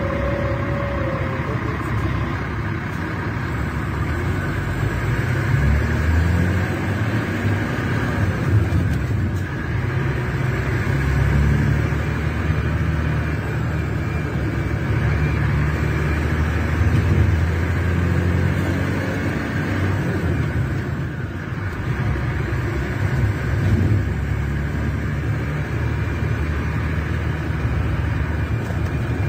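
Scania K380 bus's rear-mounted DC12 06 inline-six diesel (380 hp) running under way: a steady low rumble that swells twice as the engine works harder, around the middle of the stretch.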